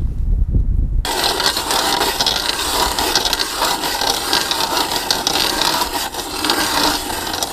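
Mora hand ice auger's spiral blades cutting down through lake ice, starting about a second in: a steady gritty scraping and crunching as the ice is shaved, with no motor note.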